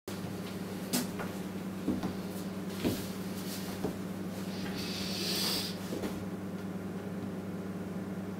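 Steady low room hum with a few faint clicks or knocks in the first four seconds and a brief hiss that swells and fades about five seconds in.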